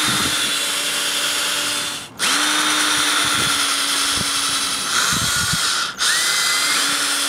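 Cordless drill running steadily as its bit bores holes through hardwood knife-handle scales. The whine drops out suddenly twice, about two and six seconds in, and starts up again each time.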